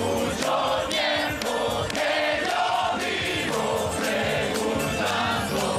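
A large crowd singing a song together over music.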